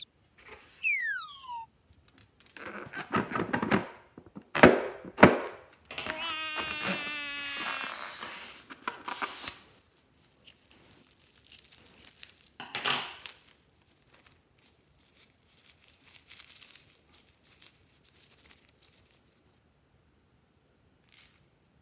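A falling whistle-like cartoon sound effect, then sharp scissor snips as a rubber balloon is cut open over a tray of foam slime. A squealing whine with many overtones lasts about two seconds, followed by a hiss and faint scattered rustles and crackles.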